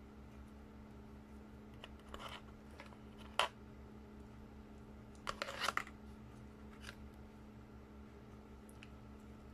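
A spoon and hands handling baked sushi and a sheet of roasted seaweed (nori): a few short clicks and crinkles, the sharpest click about three and a half seconds in and a crinkly cluster a couple of seconds later, over a steady low hum.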